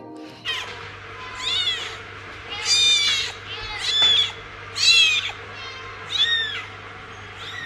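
Young grey-and-white kitten mewing repeatedly, high-pitched calls that rise and fall, about one a second.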